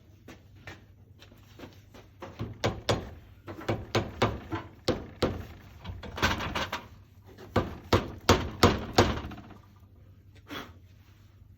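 A quick, irregular run of sharp knocks and clunks, hard objects striking each other, loudest around eight to nine seconds in, over a steady low hum.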